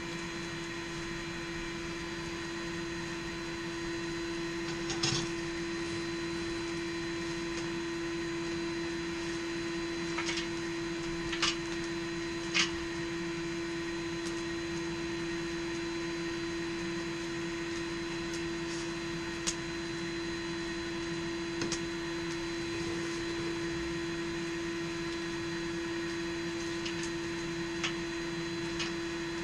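Steady electric motor hum with one strong constant tone, joined by a handful of brief, sharp metallic clinks scattered through.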